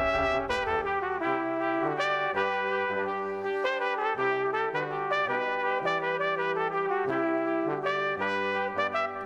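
Instrumental background music: a brass melody moving note to note over a bass line.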